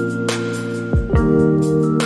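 Background music with held chords over a light, steady beat; the chord changes about a second in.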